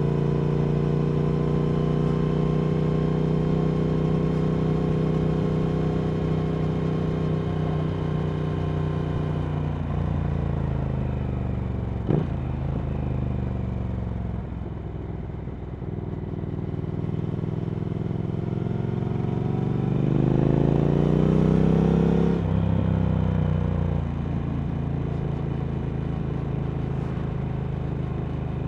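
Triumph Speed Twin 1200 parallel-twin engine through Vance & Hines slip-on exhausts, heard while riding. It holds a steady cruise, then the pitch falls as the bike slows, with a brief click about twelve seconds in. Later it opens up with a rising, louder pull, then eases back to a steady run near the end.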